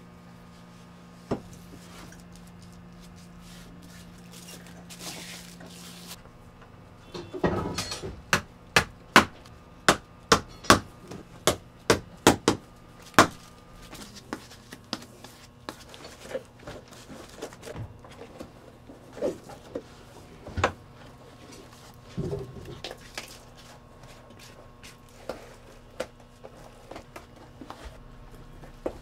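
Hand hammer striking a boot being made by hand: a quick run of sharp blows about two a second for several seconds, then scattered lighter taps.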